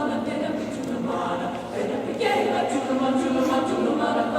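High school choir singing an Irish-language choral piece, several voices together on moving sung notes with crisp consonants.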